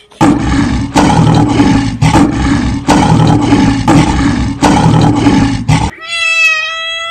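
A loud, harsh animal-like roar dubbed in as a sound effect, swelling in repeated surges for about six seconds. It cuts off and a long, steady, high-pitched call takes over.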